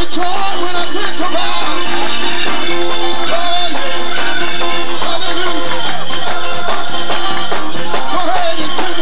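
Loud live gospel praise-break music from a church band, with electric guitar over a dense run of drum and percussion hits.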